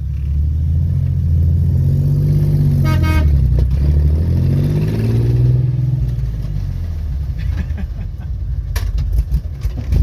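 1969 Jeep CJ5 engine running while the Jeep drives, its speed rising and falling repeatedly as it revs and comes off. A brief horn toot about three seconds in, and a few sharp clicks near the end.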